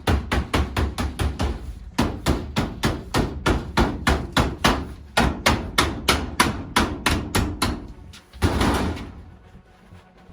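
Rapid hammer blows, about four to five a second, stopping about eight seconds in; then a short burst of noise and a few faint taps.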